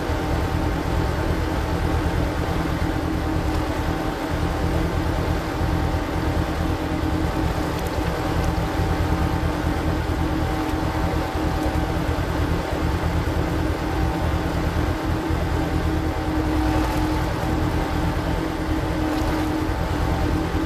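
A power tiller's engine runs steadily, driving a screw-cone log splitter, with a constant drone and a few steady tones throughout.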